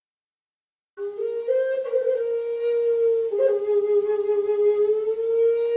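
Native American style flute playing a slow melody. It starts about a second in and moves up and down through a few notes, then settles on a long held note.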